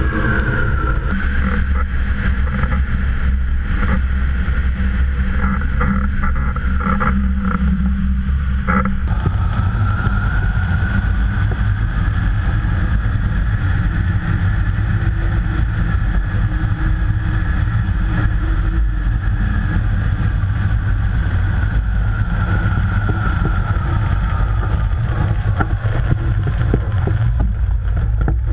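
Airflow rushing over the microphone of a camera mounted on a flying hang glider: a loud, steady low rumble of wind buffeting, with a faint whistle that slowly rises and falls.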